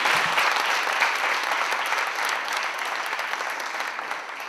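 Audience applauding, many hands clapping together; the applause gradually fades over the last couple of seconds.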